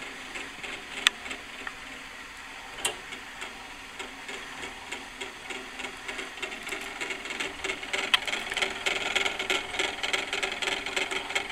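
Antique clockwork spit-roaster mechanism running: its gear train turning with a fast, steady clatter of meshing teeth, growing louder about eight seconds in. A sharp click about a second in, and another a couple of seconds later.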